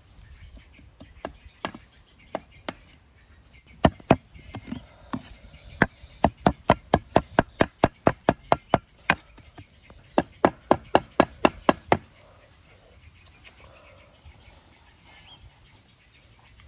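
Cleaver chopping a fish-paste and herb mixture on a round wooden chopping block: a few scattered knocks, then a fast, steady run of chops about four a second with one short break, before the chopping stops.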